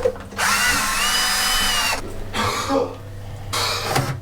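Power drill running: its motor whine rises as it spins up, holds for about a second and a half, then comes again in two shorter bursts.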